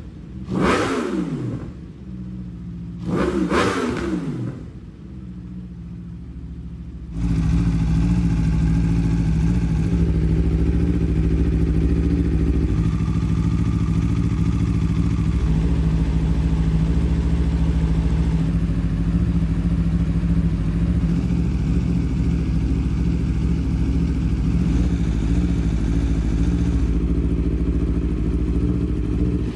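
Aprilia RSV4 Factory's V4 engine blipped twice, each rev falling quickly back, then settling lower; about seven seconds in it turns suddenly louder and runs steadily at a constant pitch.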